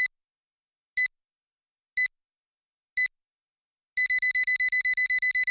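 Electronic wake-up alarm beeping: a short high beep once a second, four times, then about four seconds in a fast run of beeps at about eight a second.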